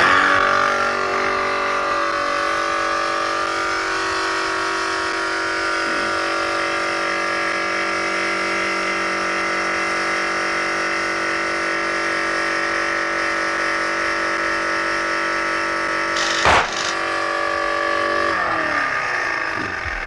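An electric motor runs steadily, blowing up a balloon. Late on the balloon bursts with a single sharp bang, and a couple of seconds later the motor winds down, falling in pitch: a pressure switch cuts the motor off once the pressure in the balloon drops.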